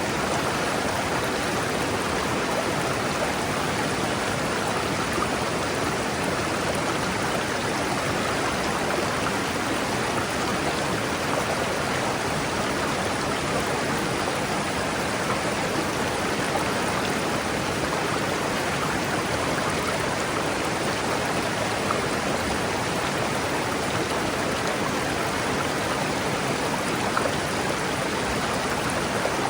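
River water rushing steadily over rocks: an even, unbroken rush of flowing water.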